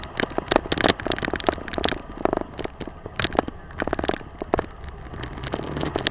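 A truck driving over a rough dirt course, heard from its hood: a dense, irregular clatter of knocks and rattles from the jolting body over a steady low engine rumble.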